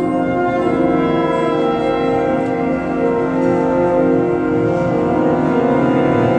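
Wind ensemble playing sustained chords, many instruments holding long notes together.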